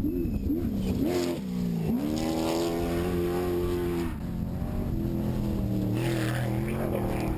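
Trophy truck engine at full race throttle: its pitch rises and falls for the first couple of seconds, then climbs sharply and holds high for about two seconds before dropping back to a lower, steadier note.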